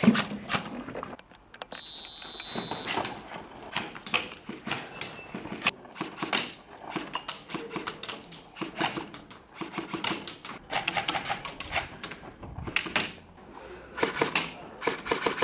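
Airsoft guns firing: irregular sharp clicking shots, sometimes in quick runs of several a second. A short high-pitched beep sounds about two seconds in.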